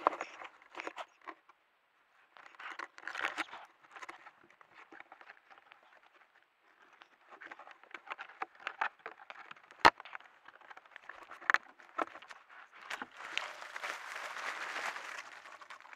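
Rustling and crackling in dry leaf litter and brush, coming in irregular spells, with one sharp click about ten seconds in and a longer, denser spell of rustling near the end.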